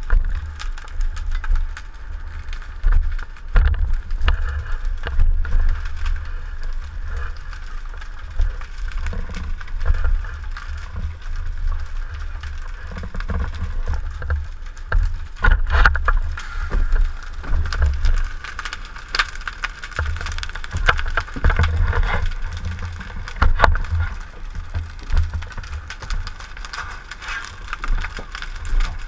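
Fire-ground noise: a steady drone over a low rumble, broken by scattered sharp knocks and crackles.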